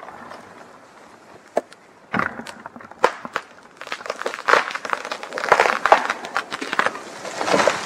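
A felled spruce going over: a few sharp cracks from the breaking hinge wood, then a thickening crackle and swish as its branches brush through the neighbouring crowns on the way down.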